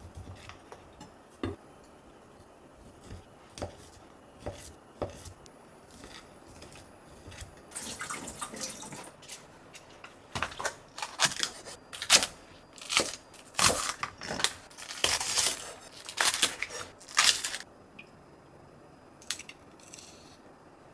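Kitchen prep on a wooden cutting board: a kitchen knife cutting through a block of ham with a few sharp knocks on the board, then a long run of loud, crisp strokes for several seconds in the middle as a green onion is handled and torn, then a few soft clicks.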